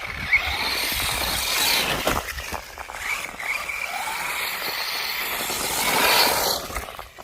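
Radio-controlled FTX Outlaw truck being driven hard, its electric motor whining and rising and falling in pitch with the throttle, with scattered knocks from the chassis and tyres over rough ground and wind rumbling on the microphone.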